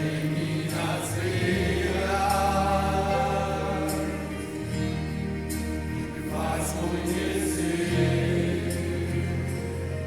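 Gospel-style music: voices singing long held notes in chorus over a steady bass line.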